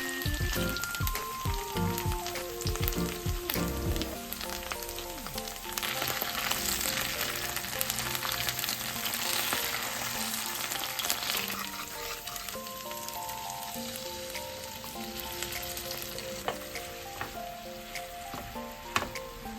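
Food frying in a pan, a steady sizzle with scattered sharp clicks of a utensil stirring. Light background music plays under it.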